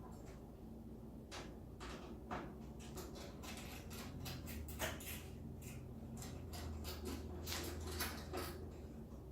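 Scattered clicks and knocks of metal hardware and tools being handled while parts are fitted and fastened, with a low hum underneath from about halfway through.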